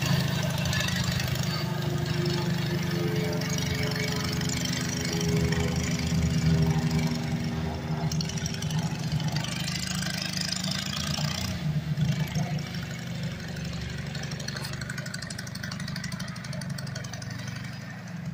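Small homebuilt tractor's engine running as it is driven across a yard, a steady throb that grows fainter as the tractor moves away.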